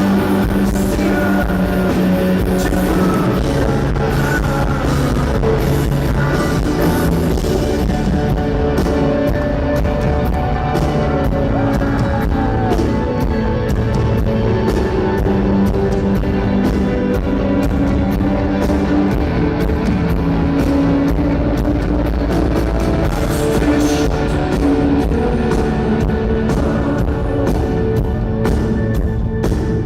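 Rock band playing live: a drum kit keeping a steady beat under guitars and a sung lead vocal.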